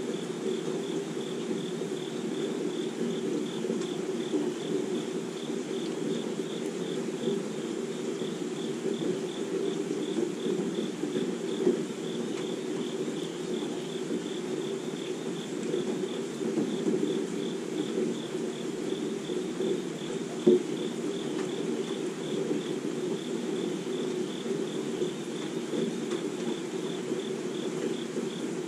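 Steady rain falling on a leafy backyard, with insects chirping high in an even, fast pulse throughout. One sharp tap about twenty seconds in stands out.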